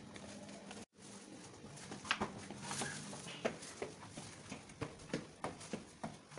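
Footsteps on hard tiled stairs, a steady run of sharp steps about three a second from about two seconds in, as someone climbs. Before that a low steady hum, broken by a brief moment of total silence about a second in.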